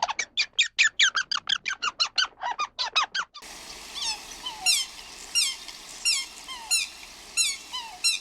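High-pitched animal calls in two parts. First comes a fast run of squeaky chirps, about five a second, for about three seconds. Then, after a cut, a single call sweeping sharply downward repeats roughly every 0.7 seconds over a steady background hiss.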